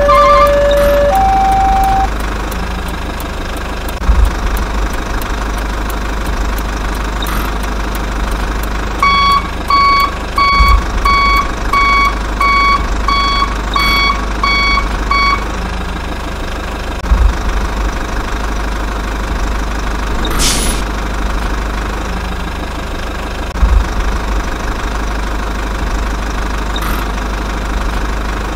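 Truck engine running steadily with a low rumble. From about nine to fifteen seconds in, a reversing alarm beeps a little under twice a second. A two-tone electronic signal alternates high and low and stops about two seconds in.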